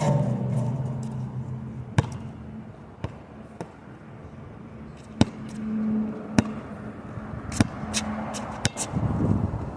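A basketball bouncing on a hard outdoor court: a handful of sharp, irregularly spaced thuds, over wind noise and a steady low hum.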